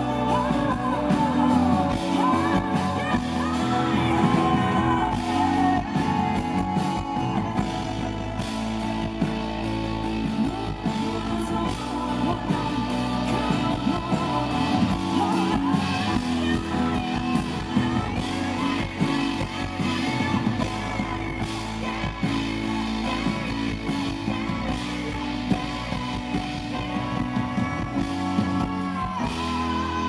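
Live pop-rock song: a woman singing into a microphone over acoustic guitar and band accompaniment.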